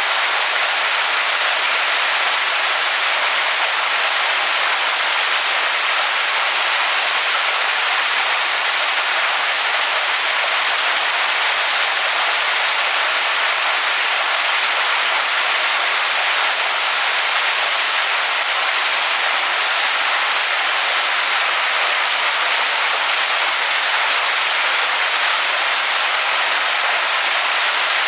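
Waterfall splashing onto rocks: a steady, even rush of falling water, bright and hissy with little low rumble.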